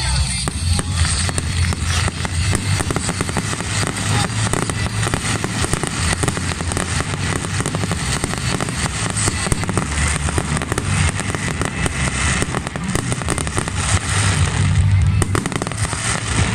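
Fireworks display crackling densely, countless small pops running together into a continuous rapid crackle, with deep booms and music underneath.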